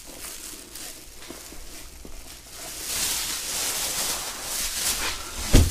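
Clear plastic bag crinkling as it is handled on a small outboard motor being carried, growing louder after a couple of seconds, then a single sharp knock near the end.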